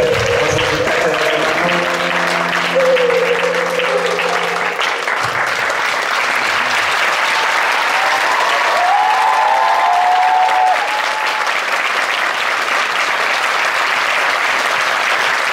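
Theatre audience applauding steadily, with the last held notes of the music fading out over the first few seconds. A voice in the crowd whoops briefly about nine seconds in.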